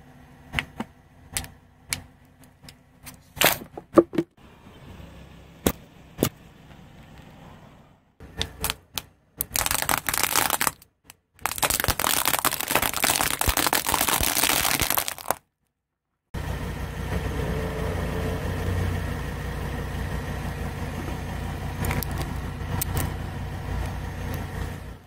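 A car tyre rolls over and crushes plastic objects. First comes a series of sharp plastic cracks and snaps, then several seconds of dense loud crackling and crunching, then a steady low rumble of the car rolling, with a few more snaps.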